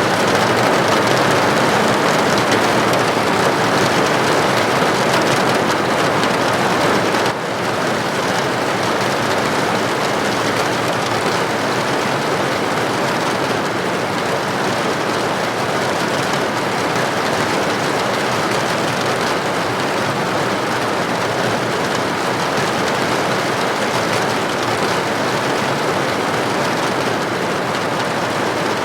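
Steady heavy rain heard from indoors, an even rushing patter that drops slightly in level about seven seconds in.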